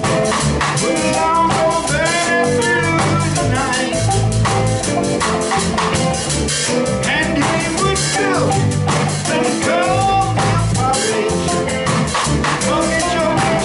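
Live band playing a reggae song on electric guitars and a drum kit, steady and loud.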